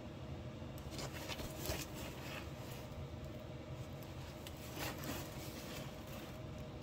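Faint rustling and rubbing as a rolled diamond painting canvas is handled and shifted, with a few soft scrapes starting about a second in, over a low room hum.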